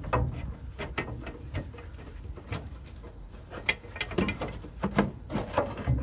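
Irregular metallic clicks and knocks of a VW T25 upper control arm and its fittings being handled and shifted as the arm is worked free from the van.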